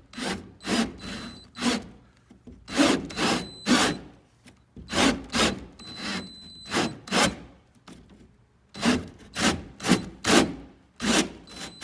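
Wall-ez drywall cutting tool turning slowly in a drill, its teeth rasping into the drywall around a damaged hole in repeated scraping strokes, about two to three a second. The strokes come in short runs with brief pauses, and a faint high whine comes and goes with some of them.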